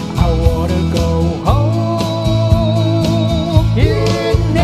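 Music: an instrumental passage of a pop song, a melody line holding long, wavering notes over a steady beat.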